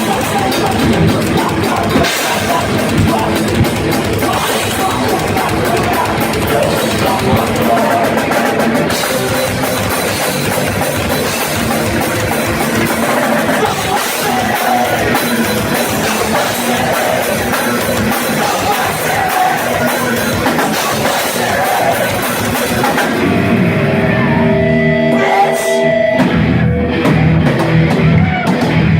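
Live heavy rock band playing loud: distorted electric guitar, a driving drum kit and vocals. About three-quarters of the way through the cymbals drop away and a few held notes ring out.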